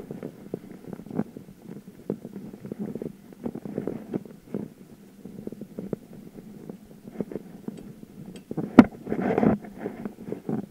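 Rattling and rumble of a bicycle being ridden over city pavement, with many small irregular clicks, a sharp knock about nine seconds in and a short louder rattle just after it.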